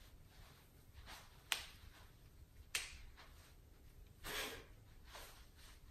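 Quiet room with two small sharp clicks a little over a second apart, then a brief soft hiss.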